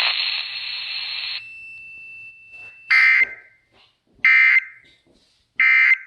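Weather radio broadcast at the end of a tornado warning: a hiss of static cuts off about a second and a half in, then three short, loud, buzzy data bursts about a second apart, the digital end-of-message code that closes an emergency alert.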